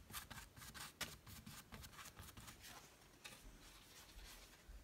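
Faint, quick scratchy swishes of a paintbrush's bristles making short random strokes of acrylic paint on a stretched canvas.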